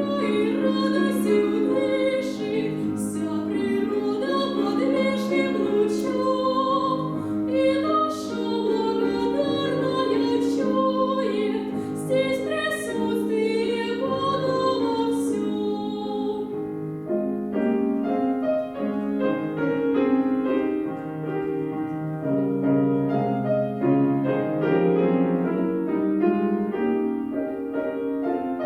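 A female voice singing a classical song with piano accompaniment. The voice stops about two-thirds of the way through, and the piano carries on alone.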